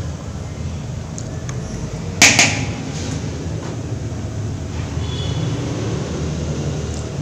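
Spices being tipped into an empty wok from small plastic bowls: a loud double knock against the wok about two seconds in and a few light clicks, over a steady low hum.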